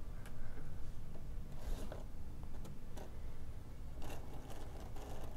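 Old Varney HO-scale diesel switcher being nudged along its track by hand: soft scraping and light ticks of the wheels on the rails, over a faint low hum from its motor. The motor is struggling and drawing too much current, and probably just needs fresh oil.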